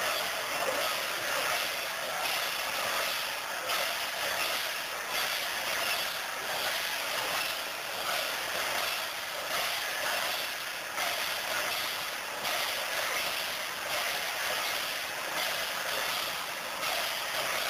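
Steady, even din of a large, dense crowd, with no single voice standing out.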